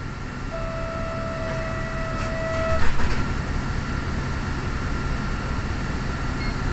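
Low rumble of a Nagasaki streetcar and street traffic, with a steady pitched whine for about two seconds that stops just before a short clunk near the middle, the loudest moment.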